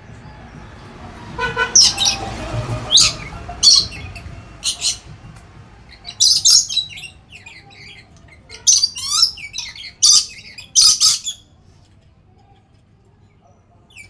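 Nuri (lory parrot) calling: a series of loud, short, high calls and chirps in clusters, some with quick warbling sweeps in pitch.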